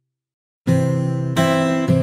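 Background music starts about two-thirds of a second in: acoustic guitar strumming chords, a new strum roughly every half to two-thirds of a second.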